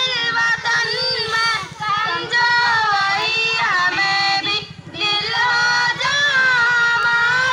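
High, child-like voices singing a melody with instrumental backing, with a steady low pulse underneath.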